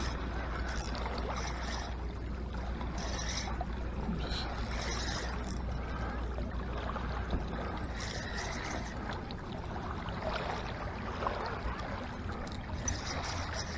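Small waves lapping and splashing over the stones of a rocky lake shore, with irregular hissy splashes every second or two over a steady low rumble.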